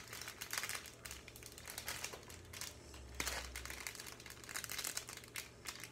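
Small clear plastic bag of foam beads crinkling irregularly as fingers handle and squeeze it to get it open.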